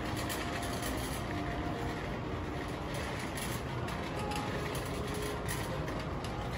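Steady low rumble of a large store's indoor ambience, with faint tones in the background.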